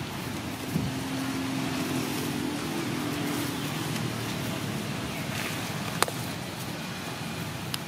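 Steady outdoor background noise, with a low droning hum for the first few seconds and a sharp click about six seconds in and another near the end.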